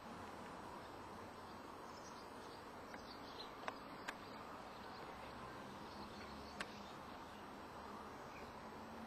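Faint, steady background hiss with a low hum, broken by a few sharp clicks: two close together a little under four seconds in and one more near seven seconds.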